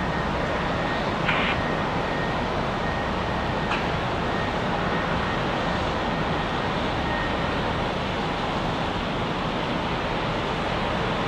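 Steady outdoor rumble and hiss of wind and distant jet and road traffic as a Frontier Airlines airliner comes in on final approach to land. Two faint clicks sound in the first few seconds.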